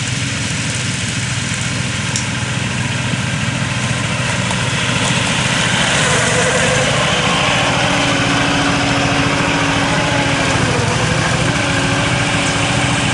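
Small engine of a ride-on 7¼-inch gauge Lehigh Valley diesel-outline locomotive running steadily as it moves off and passes close by, louder from about five seconds in.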